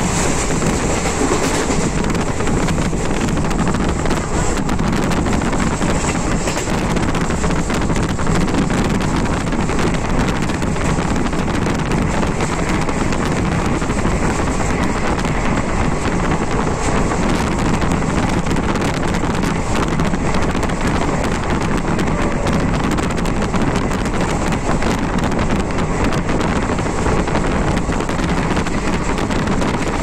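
Steady rush of wind buffeting the microphone over the low rumble of a moving vehicle, without let-up.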